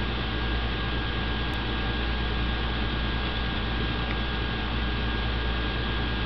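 Steady low hum under an even hiss, with a faint steady high whine; no distinct events.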